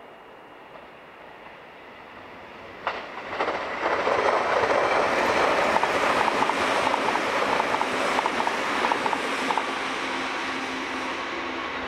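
Freight train hauled by EF64 electric locomotives passing close at speed: a sudden rush of noise about three seconds in, then wheels clicking rhythmically over rail joints, fading slowly near the end.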